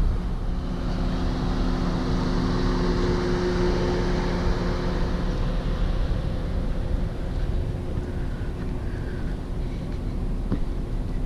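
Vehicle driving: a steady engine hum over a low road rumble.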